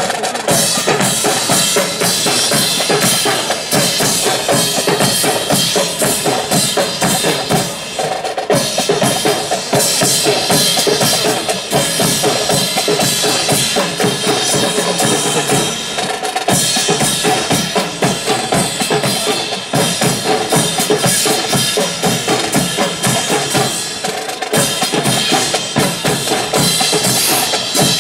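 Marching drum corps of snare and bass drums playing a steady, loud marching cadence.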